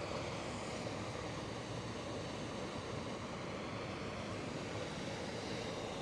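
Small waterfall pouring over rock into a pool: a steady, even rush of water.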